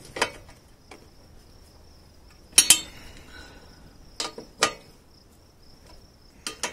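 Steel hand wrench clinking against a 12 mm nut and its bracket as the nut on a motorcycle exhaust hanger is tightened, a few sharp metallic clinks every second or two. A faint steady high-pitched tone runs underneath.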